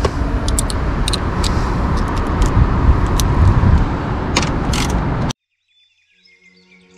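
Steady background noise with a deep rumble, under scattered metal clicks of sockets and an extension being handled from a socket set. The sound cuts off abruptly a little after five seconds, and faint music fades in near the end.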